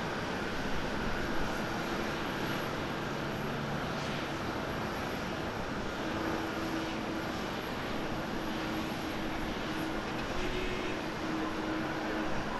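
Jet engines of a Boeing 777-200ER airliner at idle thrust while it taxis, a steady rushing noise with a low rumble. A faint steady hum joins about halfway through.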